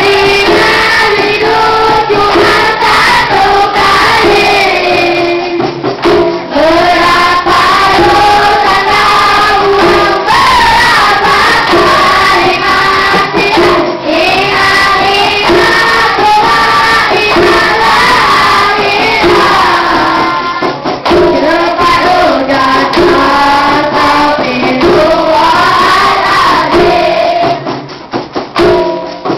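Children's dikir barat troupe singing a Malay group chant in unison. The singing turns choppy and drops in level near the end.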